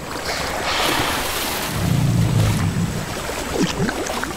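River water splashing and sloshing as a group of Nile crocodiles swim and jostle over a carcass, with a deeper low rumble for about a second around the middle.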